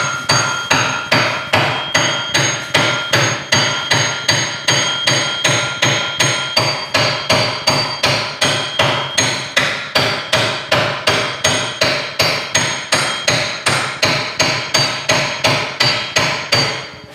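Steady light hammer taps, about two to three a second, each with a short metallic ring, driving a long-tail mud motor's tight shaft coupler onto a Predator 212cc engine's keyed crankshaft. The tapping stops just before the end.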